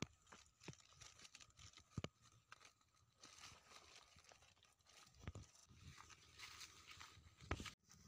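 Faint rustling and crackling of leafy undergrowth and dry grass as a person gets up and walks through it, with a few sharp clicks, the loudest about two seconds in and near the end.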